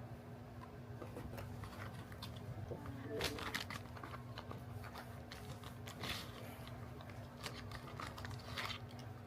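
Makeup packaging being handled and unboxed: scattered small clicks and crinkles, the clearest about three seconds in and around six seconds, over a steady low hum.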